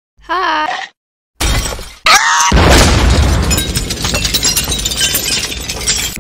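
Cartoon sound effects: a short warbling squeak, then about two seconds in a loud, long crash of shattering and breaking glass full of crackling debris.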